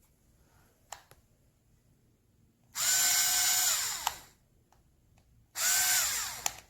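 Black+Decker 4V MAX cordless screwdriver's motor run twice off the trigger: each time it spins up to a steady whine for about a second and a half, then winds down as the trigger is released. The second run starts near the end.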